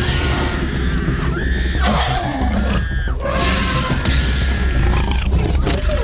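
Film soundtrack of a Tyrannosaurus rex attacking a car: children screaming in repeated high, held cries as the roof glass cracks and gives way, over a steady deep rumble.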